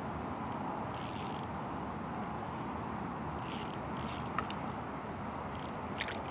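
Small ice-fishing spinning reel clicking in three short spells as a fish is reeled up through the hole, over a steady background hiss.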